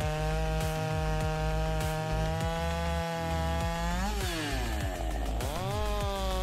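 Chainsaw running at high revs, its pitch dipping and climbing back about four seconds in, over background music with a steady beat.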